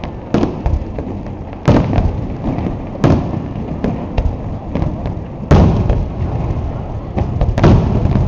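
Aerial fireworks shells bursting: a string of sharp booms a second or two apart, the loudest near two seconds in and past the middle, with a rumbling echo between them.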